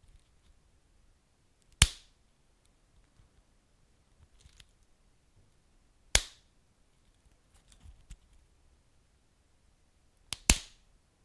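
Wood fire burning, with sharp, loud pops from the burning wood: one about two seconds in, one about six seconds in, and a quick double pop near the end, with faint small crackles between them.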